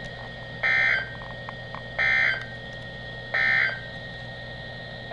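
Three short bursts of Emergency Alert System (SAME) digital data from a NOAA Weather Radio broadcast: the end-of-message code that closes a warning. Each burst is a buzzy warble about a third of a second long, spaced a little over a second apart, over a faint steady tone and hum.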